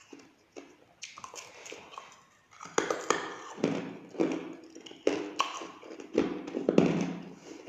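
Hard ice being bitten and chewed, a run of sharp crunches that turns louder and denser about three seconds in.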